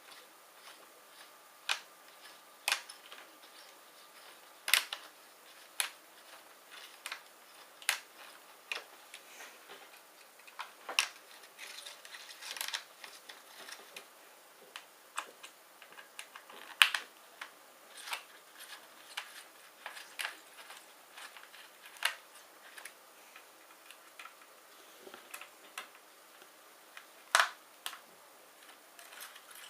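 Irregular sharp clicks and taps of laptop parts and tools being handled during disassembly, scattered one or two a second, a few louder than the rest.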